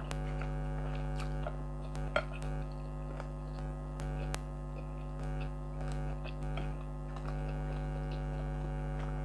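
Air conditioner running with a steady hum. Faint chewing and small clicks of eating by hand sound over it.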